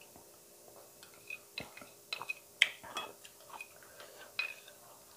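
Eating sounds: irregular soft clicks and mouth smacks from chewing and a spoon tapping a glass bowl. The sharpest click comes about two and a half seconds in.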